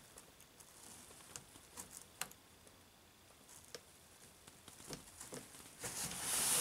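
Faint scattered clicks and light rustling from a gloved hand working a test light probe on a wiring connector, with a sharper click about two seconds in and a louder rustle near the end.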